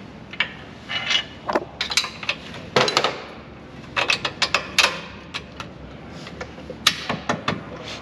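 Irregular series of sharp metallic clinks, taps and knocks from hand tools worked against a metal suspension control arm and its frame mount while the bolt holes are wedged into line, a few knocks louder than the rest.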